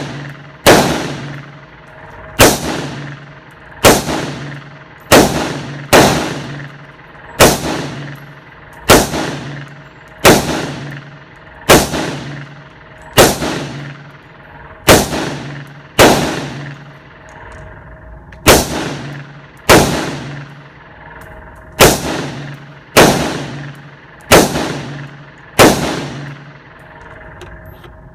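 Gunshots fired one at a time at a steady pace, about eighteen shots roughly one to one and a half seconds apart, each followed by a short ringing echo, with a pause of about two seconds after the twelfth shot.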